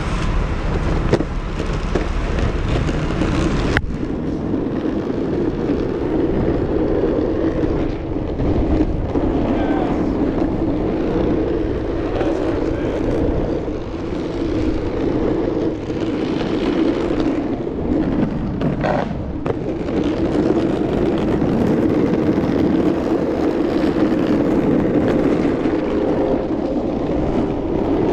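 Steady rolling noise of an electric skateboard riding on city pavement, with traffic around it.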